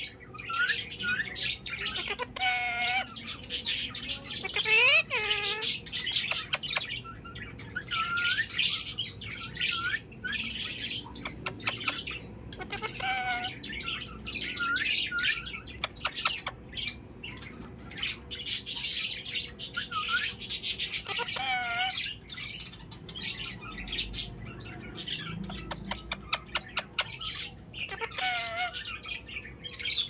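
Rose-ringed parakeet chattering: runs of rapid clicks and short squeaky chirps, broken about five times by a wavering, warbled call.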